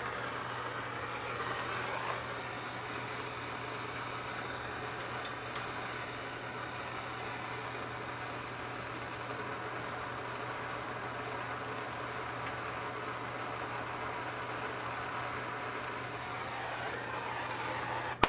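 Plumber's handheld gas torch burning with a steady hiss while it heats a copper pipe and its copper brace for soldering. Two light clicks come about five seconds in, and the hiss cuts off abruptly at the very end.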